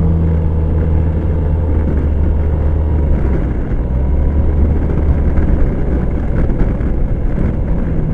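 Suzuki Burgman scooter running steadily at road speed: a low engine hum under a rush of wind and road noise.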